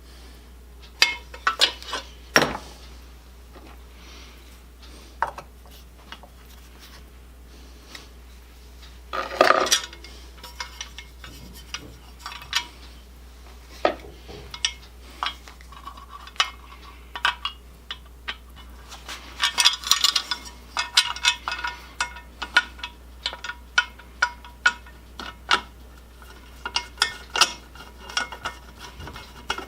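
Small metal parts and hand tools clinking and tapping irregularly as chainsaw parts are fitted by hand, with busier clatter about nine seconds in and again around twenty seconds. A steady low hum runs underneath.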